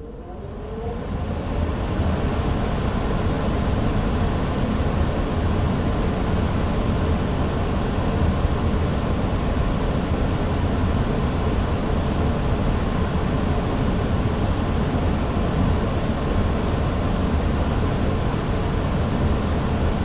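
Furnace blower fan starting up, its pitch rising and the sound swelling over the first two seconds, then running steadily with a loud rush of air over a low hum.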